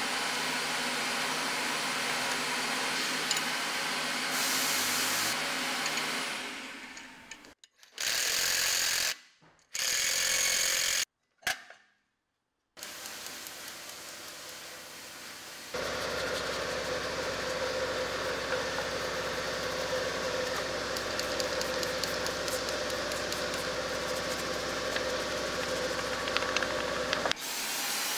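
Pneumatic shop tools running in long steady stretches while rear brake hardware is taken apart, broken up by a few short bursts and brief gaps of near silence in the middle.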